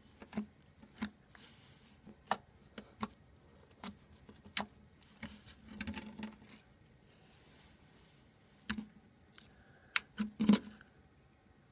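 Several homemade slimes being kneaded and mixed together by hand, giving irregular sharp clicks and small pops, with a louder burst of them near the end. The combined slime is stiffening to a clay-like thickness.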